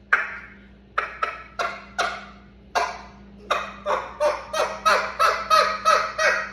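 Duck call blown to imitate a wild turkey: a string of yelps, at first a few spaced apart, then from about halfway a quicker even run of about three a second.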